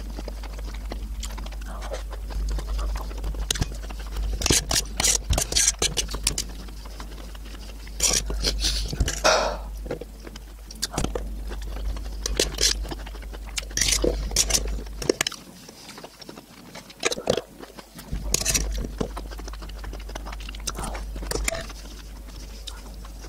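Close-miked chewing of canned sweet corn kernels: wet mouth clicks and squishes in irregular clusters, with a fork scooping kernels off a metal tray between mouthfuls.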